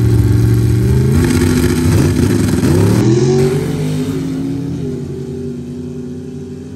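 Drag-racing vehicle's engine at full throttle, its pitch climbing in two runs as it goes up through the gears, then fading as it pulls away.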